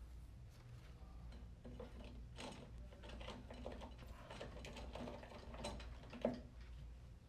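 Irregular light metallic clicks and clinks of a clutch drum being worked down into an aluminium CVT transmission case by hand, with one sharper click about six seconds in.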